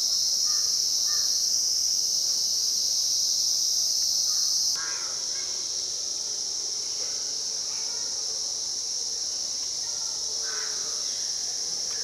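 Steady high-pitched drone of insects, stepping down in level about five seconds in. A few short bird calls sound over it.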